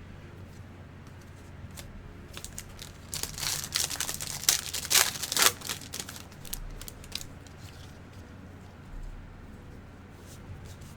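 A 2020 Bowman baseball card pack's wrapper being torn open and crinkled. A burst of tearing and crinkling starts about three seconds in and lasts a couple of seconds, with faint light ticks of card handling before and after.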